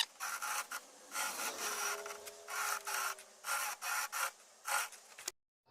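About ten short, irregular scraping strokes on wood, with brief gaps between them, ending in a sudden cut.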